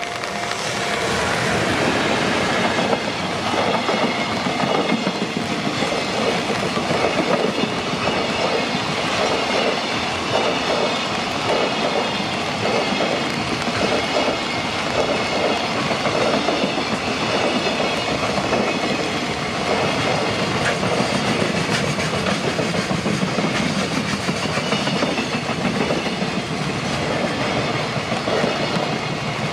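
JR Freight train's wagons rolling past close by, wheels clacking steadily in a repeating rhythm over the rail joints.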